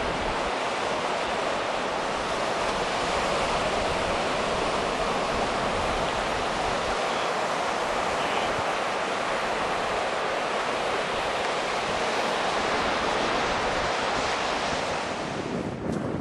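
Steady rush of sea surf breaking on a beach, with no distinct events.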